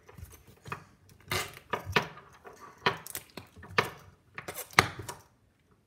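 Small plastic slime container with a metal ring being handled on a stone countertop: a string of irregular sharp clicks and clacks, the loudest about five seconds in.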